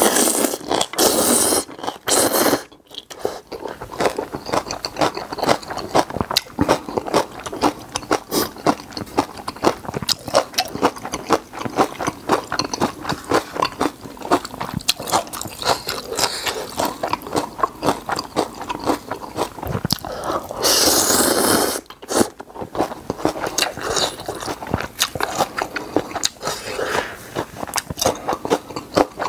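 Close-miked eating of spicy instant ramen: loud slurps of noodles at the start and again about twenty seconds in, with steady wet chewing and mouth clicks in between.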